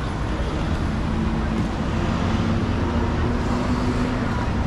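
Steady city traffic noise, with a low engine hum rising out of it in the middle and fading near the end.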